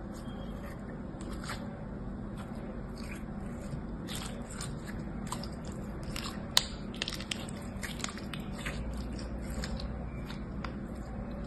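Translucent slime squeezed and kneaded between fingers, making irregular small wet clicks and pops, with one sharper pop about six and a half seconds in, over a low steady hum.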